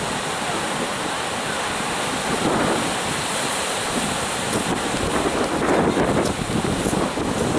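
Sea surf breaking and washing in as a continuous rushing noise, swelling louder about two and a half seconds in and again around six seconds, with wind buffeting the microphone.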